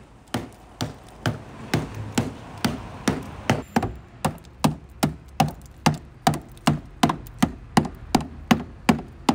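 Small hammer striking a car's rusted rocker panel in a steady series of dull knocks, about two a second, breaking loose flaking paint and rust-rotted sheet metal.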